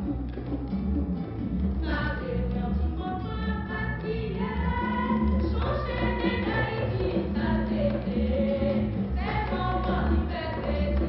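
Music with singing voices over a strong, steady bass.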